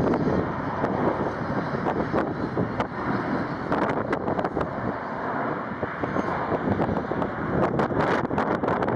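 Strong gusty wind buffeting the microphone: a continuous loud rumble broken by sharp, uneven gust thumps.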